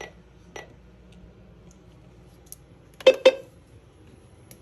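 Two faint clicks, then about three seconds in two short, loud electronic beeps in quick succession from a NOAA weather radio's buttons, as its stored alert messages are stepped through.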